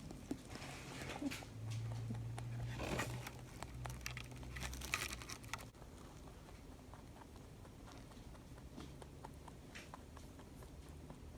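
A pet rabbit eating food pellets: scattered crunching and small clicks, busier and louder for the first five seconds or so, then sparse.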